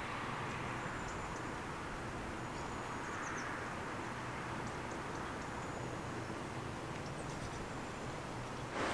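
Outdoor ambience: a steady background hiss with faint, scattered high-pitched chirps of small birds.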